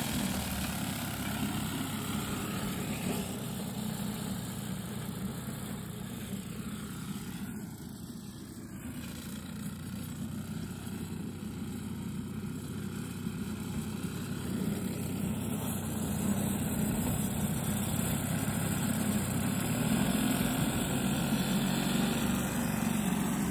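Vintage petrol cylinder lawnmower engine running steadily as it mows, fading as the mower moves away and growing louder again as it comes back.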